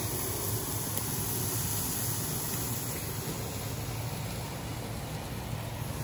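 Steaks and garlic sizzling steadily in a hot cast iron skillet over a wood fire.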